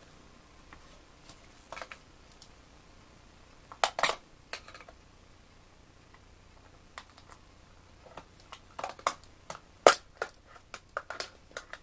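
Scattered clicks and light metal taps of a cable box's circuit board and its sheet-steel shield cover being handled and worked apart. There is a small cluster about four seconds in, then a run of sharper clicks over the last few seconds, the loudest near the end.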